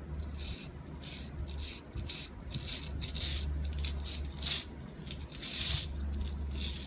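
Copper winding wire being pulled and scraped out of a small electric motor's stator: a string of short, irregular scratchy rasps, about two a second, over a steady low hum.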